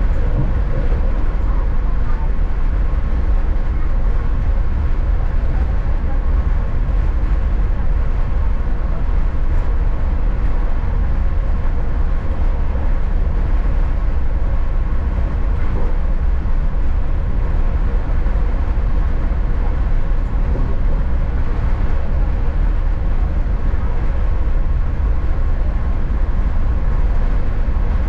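Flixtrain passenger train running: a steady, unbroken low rumble with a faint constant hum above it.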